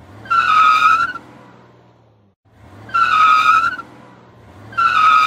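Added car sound effect played three times, about two seconds apart: an engine rumble that swells into a high tyre squeal lasting about a second, then a fading rumble.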